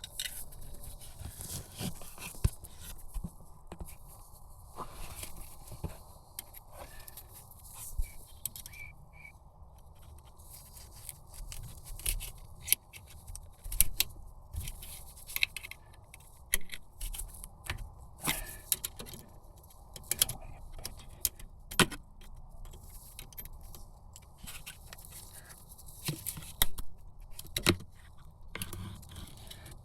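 Irregular metallic clicks, knocks and scrapes of hands and tools working on a car's handbrake cable and its fittings, with a few louder knocks scattered through, over a faint steady hum.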